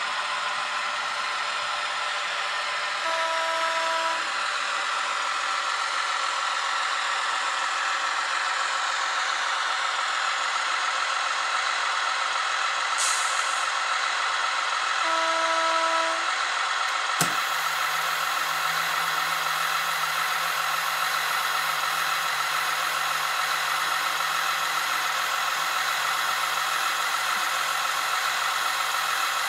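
Sound of a TGK2 'Kaluga' diesel shunting locomotive: a steady hissing engine noise, with two short horn toots, about 3 and 15 seconds in. About 17 seconds in a click is heard, and after it a low steady hum joins the noise.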